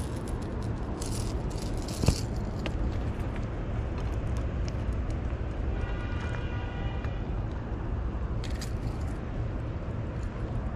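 Rattling and clicking of a fishing rod, spinning reel and hard lure as a small black bass is handled off the hook, with a sharp click about two seconds in and a brief rattle near the end, over a steady low rumble.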